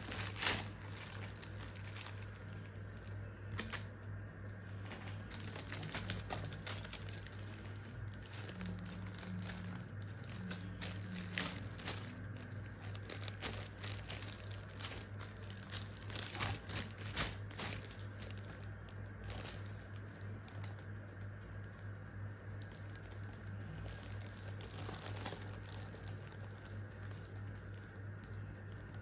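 Clear plastic packaging bag crinkling and crackling in irregular bursts as the fleece hood is handled on it, over a steady low hum.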